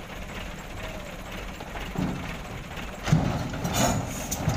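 A heavy engine runs steadily while an overturned, loaded light truck is pulled back upright. About three seconds in, the truck drops onto its wheels with a heavy thump and a clatter of metal knocks from its body and load.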